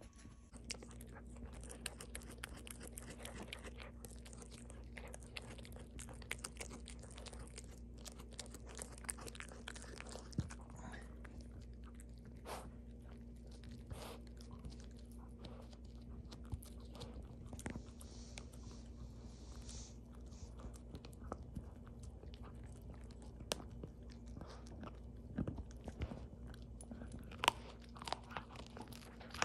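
Small dog gnawing on a lamb chop bone: irregular wet chewing with frequent short crunches and clicks of teeth on bone, a few louder crunches near the end.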